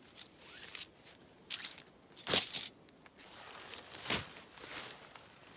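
A few short crunching, rustling noises from someone handling camping gear and moving about on dry ground while setting up a tent. The loudest comes a little over two seconds in, with smaller ones before and after.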